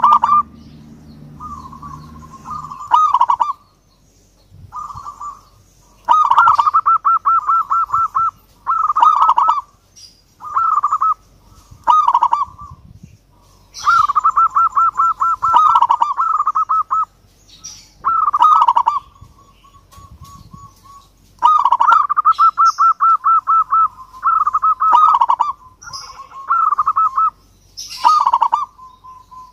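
Zebra dove (perkutut) cooing: repeated phrases of rapid, rolling trilled coos, each a second or two long, with short pauses between.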